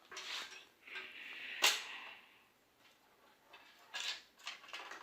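Hands handling a CPU cooler and its parts: rustling and light taps, with one sharp click or snap a little under two seconds in and a few smaller clicks near the end.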